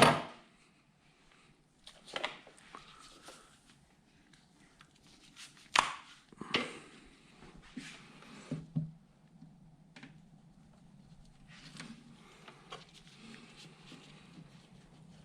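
Irregular knocks, taps and clinks from hand work on the HMMWV's steel heater water lines being fitted between engine and heater core. The loudest knocks come at the start and about six seconds in.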